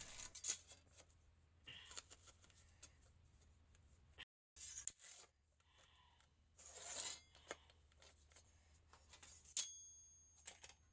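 Faint handling sounds of marking a PVC drain pipe for cutting: a marker scratching and a rule and metal straightedge being moved against the pipe and concrete floor, with a sharp clack and brief metallic ring near the end as the straightedge is set down.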